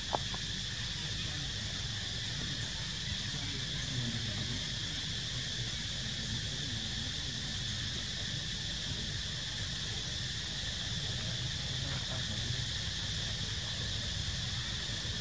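Steady chorus of insects, a continuous high-pitched drone without pauses, over a low background rumble.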